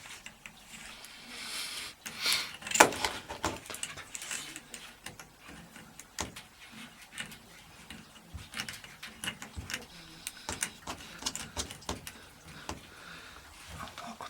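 Metal plumbing fittings of a bath mixer tap clicking and knocking as they are handled and screwed on, with many short irregular clicks and one louder knock about three seconds in.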